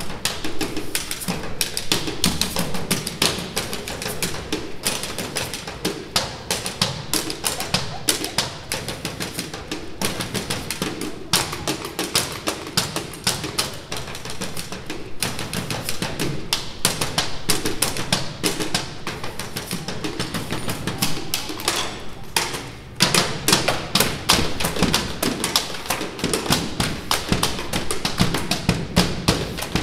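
A school band playing, with drums and percussion keeping a busy, steady stream of strikes under the pitched instruments. The music dips briefly about two-thirds of the way through and then comes back fuller.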